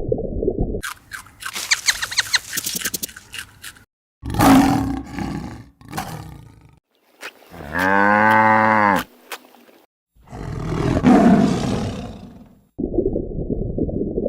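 A run of separate animal calls cut one after another: a rapid clicking call, a single drawn-out call with a clear pitch in the middle, and a rough, roar-like call near the end, with a low rumbling noise at the start and end.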